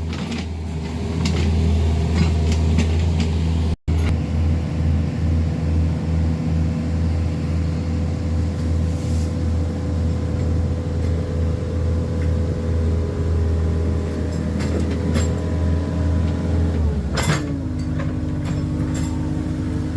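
Excavator diesel engines running steadily close by, with a strong low hum. There is a momentary gap about four seconds in, and near the end the engine note drops to a lower pitch.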